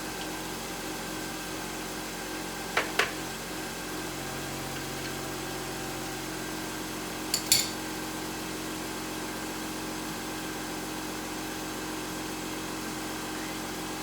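Steady background hum with a few short metallic clinks of hand tools against metal: two close together about three seconds in, and two more with a high ring about halfway through.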